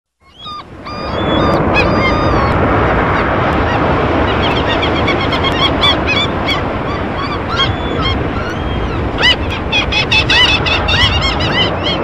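Steady ocean surf fading in over the first second, with a flock of birds calling over it in many short rising-and-falling cries that come thicker near the end.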